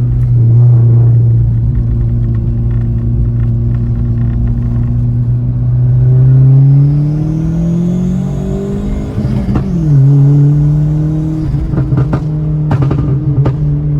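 Turbocharged 1.0 engine of a Volkswagen Gol G6 heard from inside the cabin, running steadily, then revving up hard for a few seconds before the revs drop suddenly at a shift about ten seconds in. Near the end the exhaust lets out a few sharp pops.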